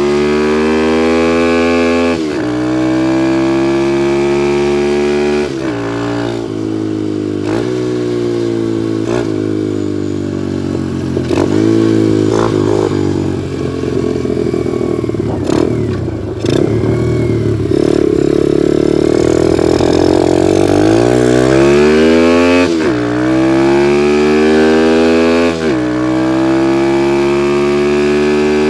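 Tao Tao DB17's 125 cc single-cylinder four-stroke engine being ridden and accelerating, its pitch climbing and dropping back at each upshift. About halfway through it eases off and runs rougher and less even, then pulls away again and shifts up twice more near the end.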